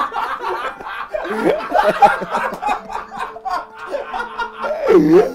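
Two men laughing together in irregular, broken bursts.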